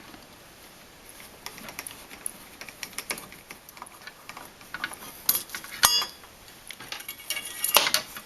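Metal clicks and scrapes of a screwdriver and a single-gang mud ring being unscrewed and pulled off a metal electrical box. There are scattered light ticks, then a sharp click about six seconds in and a cluster of clinks near the end.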